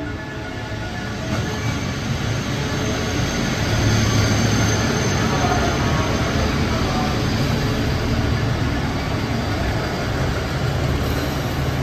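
Two KiHa 85 diesel railcars rolling into a station platform: a low drone from their diesel engines under the steady rush of wheels on rails. It grows louder over the first four seconds as the cars come alongside, then holds.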